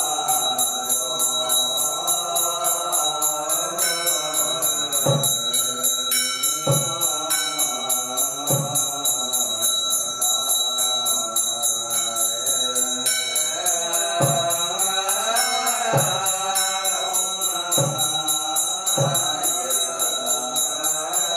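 Chanting voices over a fast, steady jingling of small bells.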